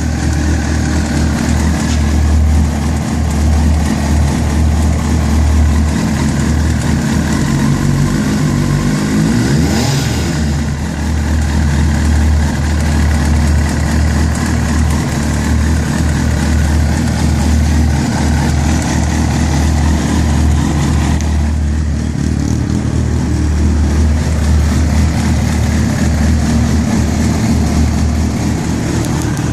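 Kawasaki Ninja ZX-6R (ZX600J) inline-four engine running at idle, with a brief rev about ten seconds in. From about that point it makes the rattling ("Klappern") that the owner is trying to track down.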